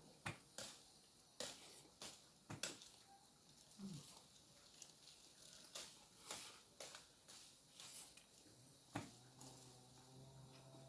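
Very quiet: faint scattered clicks and taps of people eating grilled fish at a table with their hands and a fork. A low steady hum comes in near the end.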